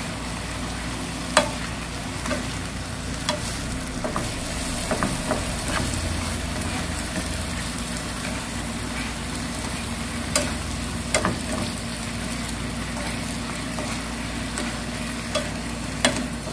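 Fish cake strips and sliced onion sizzling in a frying pan as they are stir-fried in a honey glaze with a wooden spoon and chopsticks, with a steady hiss and a sharp tap of the utensils on the pan every few seconds.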